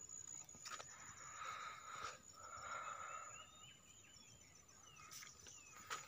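Faint open-air field ambience: distant birds chirping softly, over a steady thin high tone.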